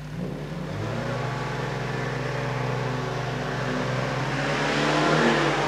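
Mercedes-Benz truck's diesel engine pulling away, its noise building and loudest near the end, over a steady low hum.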